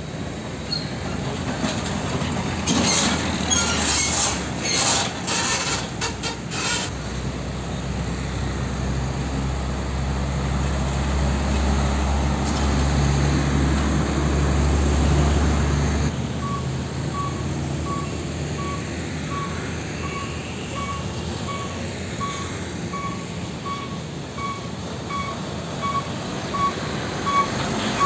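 Heavy diesel trucks driving past at low speed: a cluster of short, sharp sounds in the first seven seconds, then a deep engine rumble that builds and drops off suddenly about halfway through. After that, a vehicle's electronic warning alarm beeps steadily, a little under twice a second, over the traffic noise.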